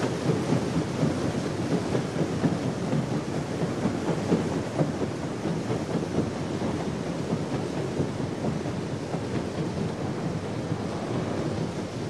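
Paddle steamer departing from a dock, its paddle wheels churning the water in a steady rumbling wash that eases slightly near the end.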